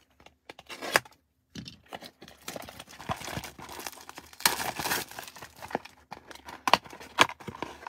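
Clear plastic shrink wrap on a trading-card box crinkling and tearing as it is ripped off by hand. The loudest tearing comes about four and a half seconds in, with a few sharp crackles near the end.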